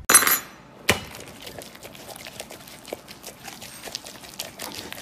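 Scattered rustling, crunching and small clicks of a shark hand puppet rooting through food on a plate, with a short noisy burst at the start and a sharp knock about a second in.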